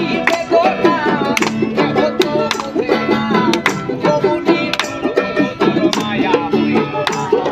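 Bengali folk song played live: a man sings over a plucked banjo, with hand drums and a tambourine keeping a steady beat.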